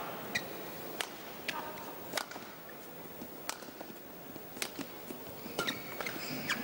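A badminton rally: sharp racket strikes on the shuttlecock about once a second, with shoes squeaking on the court mat and the murmur of a hall crowd behind.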